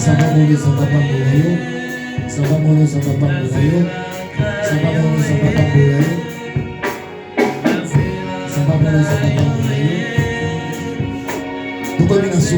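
Gospel music: singing with instrumental accompaniment and a steady beat.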